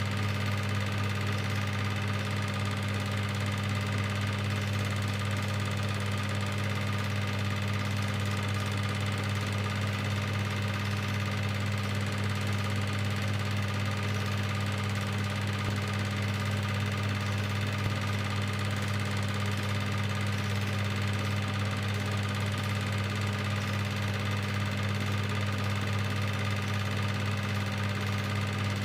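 Cine film projector running: a steady motor hum with a fine mechanical whir that does not change.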